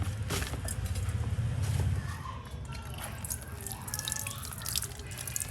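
Water dripping and splashing in irregular drops.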